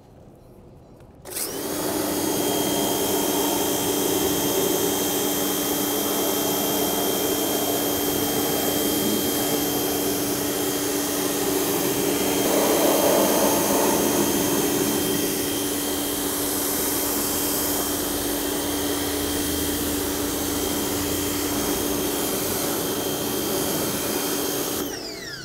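Electric pressure washer running, its pump motor humming steadily under the hiss of water jetting from a short wand with a 25-degree tip onto a car's tire, wheel and wheel well. It starts suddenly about a second in as the trigger is squeezed. It winds down with a falling pitch near the end, as the washer's auto-stop shuts the motor off when the trigger is released.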